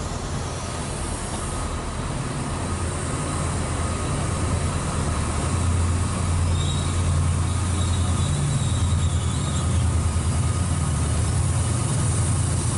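A Chiltern loco-hauled train rolls slowly past, with its Class 68 diesel-electric locomotive (a Caterpillar V16 engine) running at the rear. The deep engine hum grows louder as the locomotive draws near. A faint high squeal from the wheels comes about halfway through.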